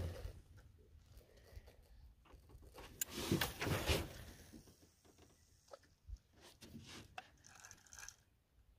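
Fishing rod and reel being cast from a small boat: a click and a short rushing burst about three seconds in, then scattered light clicks and rustles of handling.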